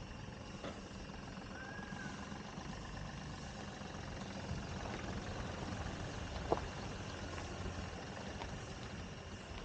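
SUV engine running at low speed as the vehicle rolls slowly past on a dirt road, a low rumble that grows louder through the middle. A steady high insect drone runs behind it, and there is one sharp click about six and a half seconds in.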